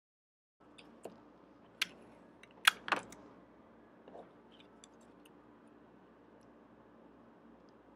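Paper cutout and clear sticky tape handled at a tabletop: a few sharp crackles and clicks, the loudest pair about three seconds in, then only light rustling.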